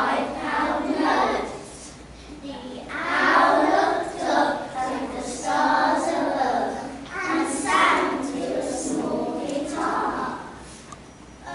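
A group of young children reciting a poem together in unison, in phrases with short pauses between.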